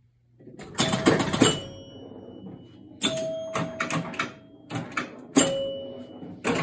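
Old electromechanical pinball machine in play: several bursts of relay and switch clatter, some followed by ringing chime bells that fade out.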